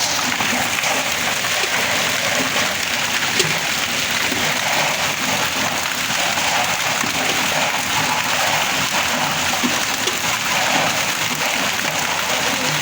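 Heavy hail pelting down: a dense, steady clatter of hailstones striking, with one sharper hit about three and a half seconds in.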